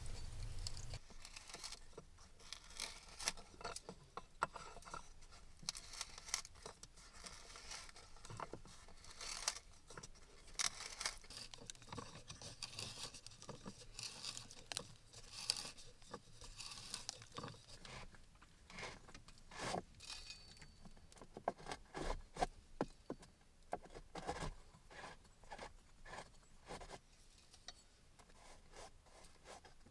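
Light scraping, clicking and crackling from hand work in a small enclosed space: many short, sharp, irregular strokes, thickest in the middle and thinning out near the end. A low hum cuts off about a second in.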